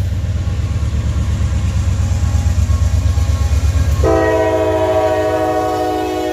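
Heavy low pulsing rumble, then a locomotive's Nathan K5LA five-chime air horn blowing one long steady chord that starts about four seconds in and cuts off near the end.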